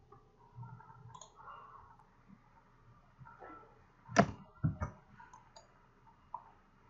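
Computer mouse clicks: two sharp clicks about half a second apart a little past four seconds in, then a few faint ticks.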